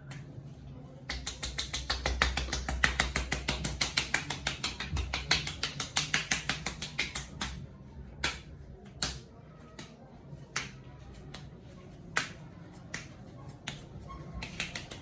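Rapid sharp slaps of a barber's percussive head massage, roughly eight a second for about six seconds, then slowing to single strikes a second or so apart.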